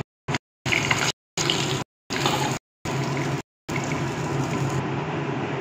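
Hot mustard oil sizzling in a kadai as fried vetki fish is lifted out with a spatula. The sizzle drops out in several short silent gaps during the first three and a half seconds, then runs on steadily.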